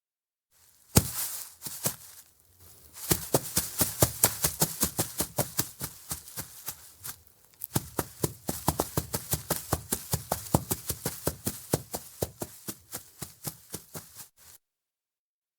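Cartoon sound-effect footsteps: small, light running steps as a quick patter of rapid taps, in two runs with a short pause between.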